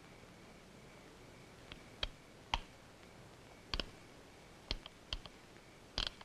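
Revolver being checked for its load: its cylinder clicks as it is turned chamber by chamber, about nine short, sharp clicks at uneven intervals, starting a little under two seconds in. The chambers turn out to be empty.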